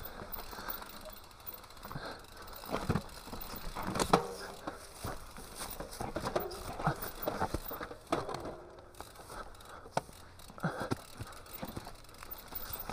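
Mountain bike riding down a rocky dirt singletrack: tyres crunching over stones and the bike rattling, with irregular knocks and clatters and a few brief squeaks.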